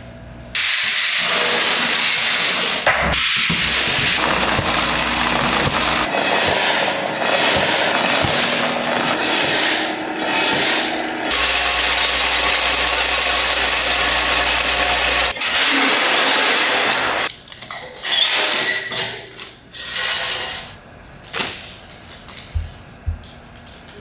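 Snack-factory machinery giving off a loud, steady hiss like blowing air or steam. It starts about half a second in and stops about seventeen seconds in, followed by quieter, scattered clatter.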